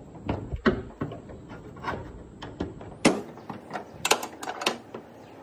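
Hand ratchet with a 12 mm socket clicking and knocking against metal as bolts are turned on a hood damper bracket, in a string of sharp, irregular clicks.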